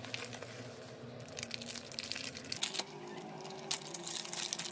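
Plastic packaging, bubble wrap and a clear plastic bag, crinkling and rustling as it is pulled open by hand, with irregular sharp crackles.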